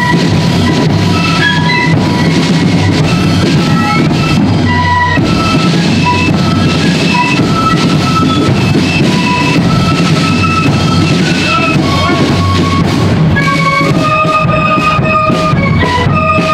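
A marching flute band playing a tune: many flutes in unison carry a bright melody of short held notes over a steady drum beat.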